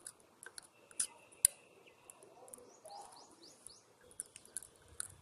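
Faint small clicks and taps as a sketch-pen nib is turned about in a plastic bottle cap of liquid bleach, with one sharp click a little over a second in. A bird gives a quick run of about five chirps around three seconds in.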